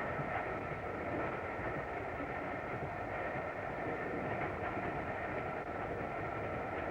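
Steam train running with the locomotive Flying Scotsman, an LNER A3 Pacific: a steady, unbroken running noise from the locomotive and its coaches.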